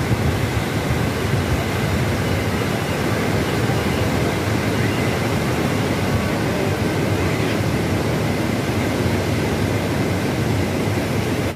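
Water rushing out of a dam's open spillway gates and churning down the river below: a loud, steady rush of noise, heaviest in the low range.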